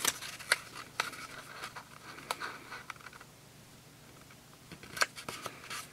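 Stiff cardstock being folded and its flaps pressed down by hand onto double-sided score tape: a few sharp taps and crackles with soft paper rustling in the first half, a quieter stretch, then a couple more taps near the end.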